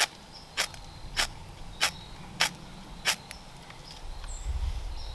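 Small ferro rod on a Wenger Swiss Army knife struck six times in quick succession, a short sharp scrape about every half second, throwing sparks onto fatwood shavings that have not yet caught. A low rumble follows near the end.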